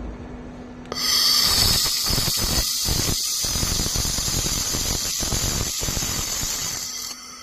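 Air-cooled laser welding machine making a weld: a loud hissing, crackling sizzle that starts suddenly about a second in and cuts off shortly before the end. A low steady machine hum is heard before and after it.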